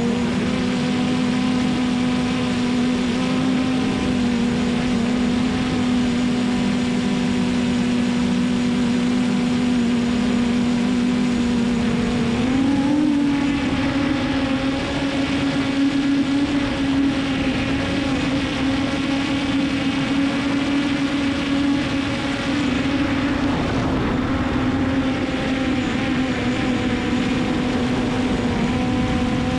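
Hubsan Zino Pro quadcopter's four brushless motors and propellers humming steadily in forward flight, recorded close up by a GoPro mounted on top of the drone. About halfway through, the pitch steps up a little as the motors speed up, then slowly eases back down.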